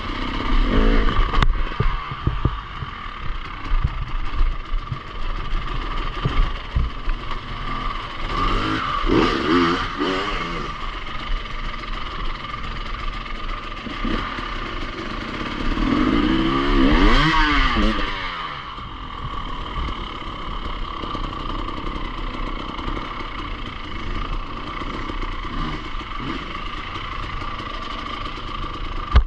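Enduro motorcycle engine running, revved up and back down twice, once about a third of the way in and again a little past the middle.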